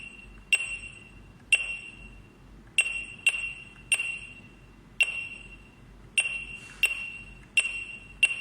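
Security alarm panel's keypad beeping once at each key press as a phone number is typed in: about ten short, high beeps at uneven intervals, each starting with a click and fading quickly.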